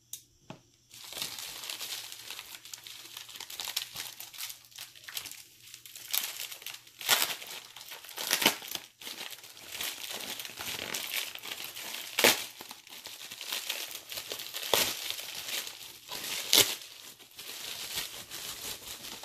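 Packaging of a mailed circuit board being unwrapped by hand: continuous crinkling and rustling that starts about a second in, with a handful of sharper, louder cracks along the way.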